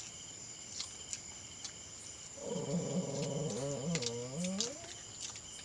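A long, low drawn-out vocal sound, held for about two and a half seconds from about two seconds in, wavering in pitch near the end. Under it runs a steady high chirring of night insects.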